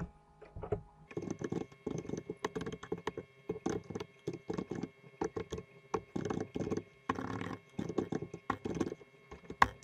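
Typing on a computer keyboard: a run of irregular key clicks, several a second, with short pauses, starting about a second in.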